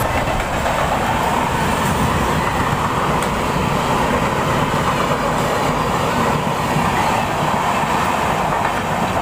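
Steady, loud running noise of a moving Mumbai non-AC suburban local train, heard from its open doorway: wheels clattering on the rails, with a long-distance express passing on the next track.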